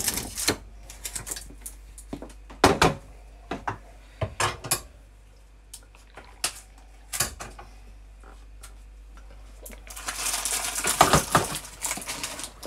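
Dishes and glassware clinking and knocking as things are handled in a dish drying rack: scattered sharp clinks, then a denser clatter about ten seconds in.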